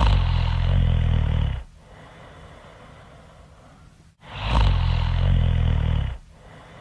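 Loud snoring: two long, low snores about four seconds apart, each lasting one and a half to two seconds. A faint steady hiss fills the gap between them.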